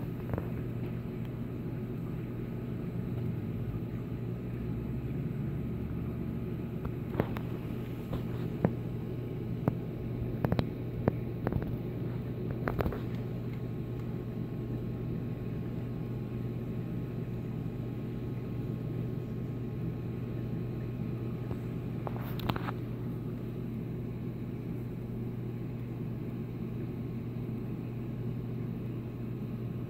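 Steady low hum of reef aquarium pumps and filtration running. A few sharp clicks come between about 7 and 13 seconds in, and one more past the middle.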